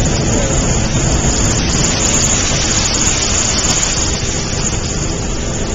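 Hot air balloon propane burner firing, a loud steady rushing roar.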